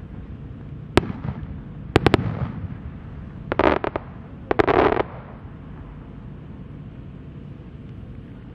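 Aerial fireworks shells going off: a sharp bang about a second in, two quick bangs a second later, then two short clusters of rapid pops, after which only a low steady background rumble remains.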